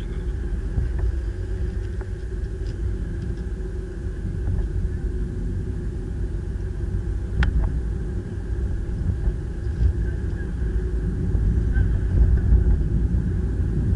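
Steady low rumble of a car's engine and tyres on the road, heard from inside the cabin while driving, with a single sharp click about seven and a half seconds in.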